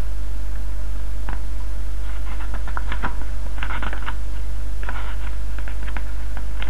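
Paper rustling and crinkling as glossy magazine pages are handled and turned, in several short bursts, over a steady low electrical hum that is the loudest sound throughout.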